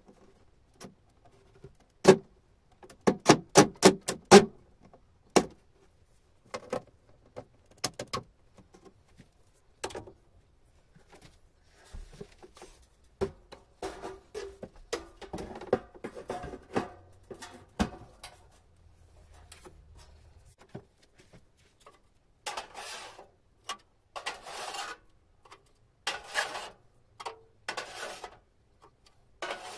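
Sharp knocks and clatter in the first few seconds as the unit is fitted. Near the end come repeated rasping scrapes of plastic drawers being slid in and out of a metal drawer cabinet.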